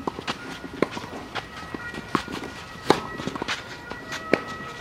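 Tennis ball struck by rackets and bouncing on a clay court: sharp, irregular pops roughly every second, the loudest about a second in, twice between two and three seconds, and again a little past four seconds, with fainter clicks between.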